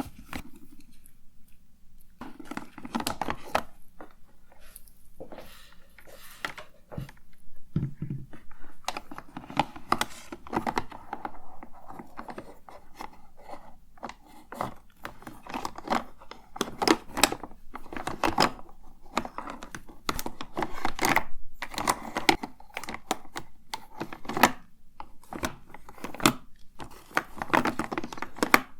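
Hands rummaging through and tapping cosmetics and their containers, making an irregular run of sharp clicks, taps and rustles.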